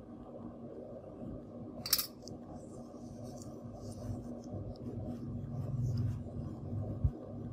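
A single sharp metallic click about two seconds in, over a steady low hum, with a short dull thump near the end.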